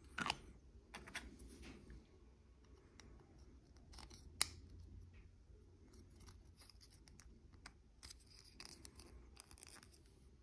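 Faint clicks and light rubbing of small plastic model-kit parts being handled and pressed together. Sharper clicks come near the start and a little over four seconds in.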